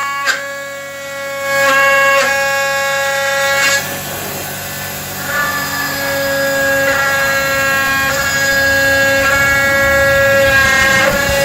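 Background music: a melody of sustained, held notes that move to a new pitch every second or two.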